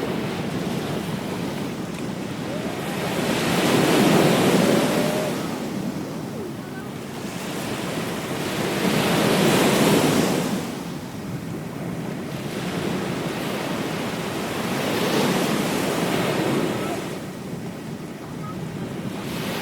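Ocean waves breaking on a beach, three swells of surf each building and washing back about every five to six seconds.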